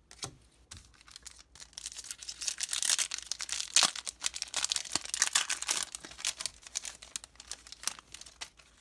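Foil booster pack wrapper being torn open and crinkled: a dense crackling rustle for about four seconds, starting about two seconds in, with lighter scattered crinkles before and after.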